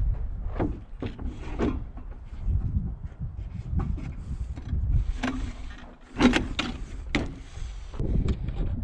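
Scattered wooden knocks and clunks from framing lumber being handled and set in place, over a low wind rumble on the microphone. The sharpest knocks come about six to seven seconds in.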